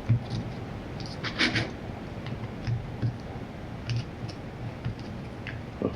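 Light clicks and scrapes of small metal engine parts and hand tools being handled, with a brief cluster of clicks about a second and a half in and a sharper click near the end.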